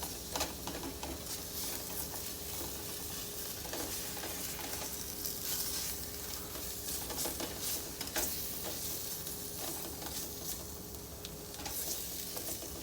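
Onions sizzling in a pan as they brown and caramelize, with a utensil stirring them and scraping or tapping the pan now and then.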